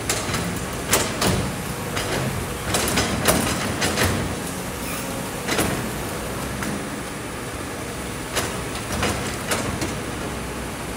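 Kobelco hydraulic crawler excavator's diesel engine running steadily as it digs, with irregular sharp knocks and clatter from the steel bucket striking rocks and sand.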